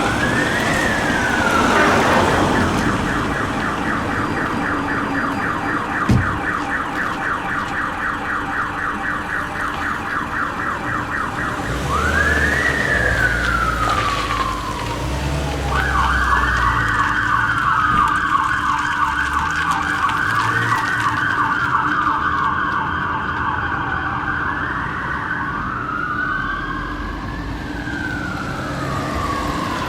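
Fire engine siren on an emergency run, switching between a slow rising-and-falling wail and a fast yelp, with two siren patterns overlapping near the end. The truck's engine rumbles underneath, and there is one short knock about six seconds in.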